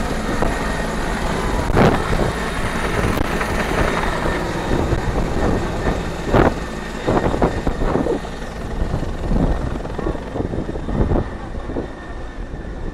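Helicopter rotor and turbine noise as the aircraft climbs away after take-off, a steady rumble that slowly fades. There are a few brief louder swells along the way.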